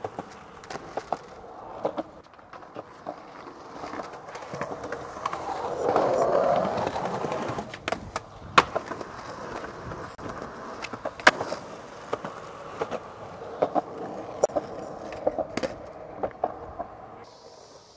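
Skateboard rolling over street pavement, its wheels clicking over cracks, with a louder rough scraping stretch around the middle and sharp clacks of the board hitting the ground, two of them much louder than the rest.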